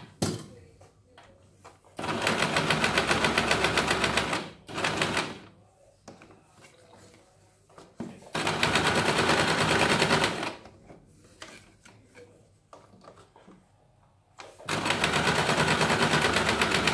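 Electric sewing machine running in three short spells of about two seconds each, with pauses between, stitching repeatedly over the same spot at its shortest stitch length to build up the end of a buttonhole.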